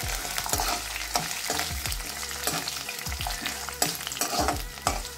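Black urad dal sizzling as it roasts in a little oil in a metal kadai, with a slotted spatula scraping and tapping the pan again and again as the lentils are stirred.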